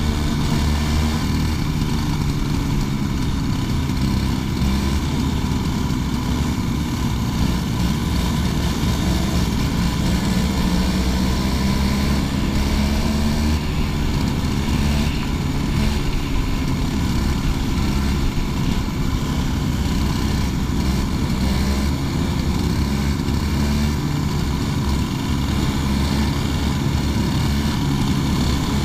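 Racing kart engine running hard, heard from on board the kart, with its pitch rising and falling as it accelerates and slows.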